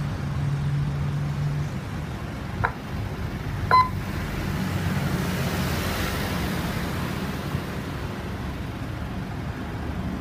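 Vehicle engine idling with a steady low hum, and two short electronic beeps a second apart near the start.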